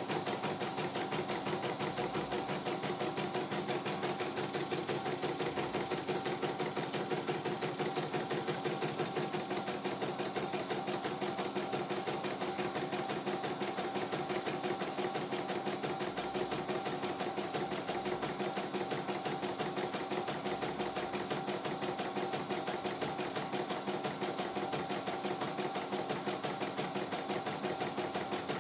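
CNY E900 computerised embroidery machine stitching out a design: a fast, even needle clatter that runs without a break.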